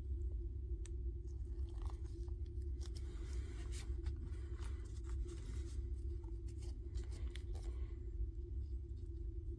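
Small irregular clicks and scrapes of metal parts being handled as the chuck of a Dewalt DCF887 impact driver is taken apart, over a steady low hum.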